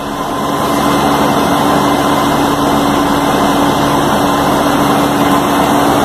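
Steady hum and hiss of running machinery, with a constant low drone, swelling up over the first second and then holding even.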